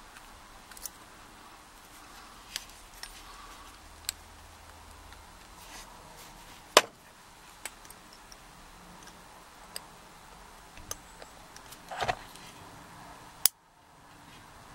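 Small metal tool clicking and tapping against a padlock body while probing its retaining pin. The clicks are scattered, with a sharper click about seven seconds in and a short run of taps near twelve seconds.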